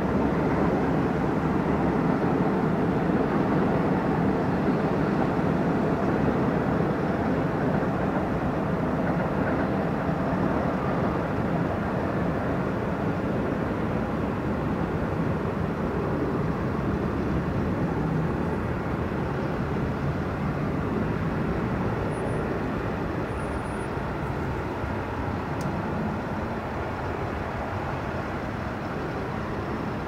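Steady low rushing outdoor background noise with no distinct events, slowly fading.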